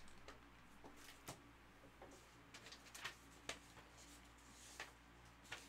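Near silence: room tone with about half a dozen faint, scattered clicks and taps.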